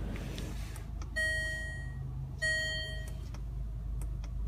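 Two electronic chimes from the Range Rover Evoque's dashboard, each lasting about three-quarters of a second, the second starting about a second and a half after the first, as the park assist button is pressed to switch park assist on and off. Faint button clicks and a low steady hum from the idling engine run underneath.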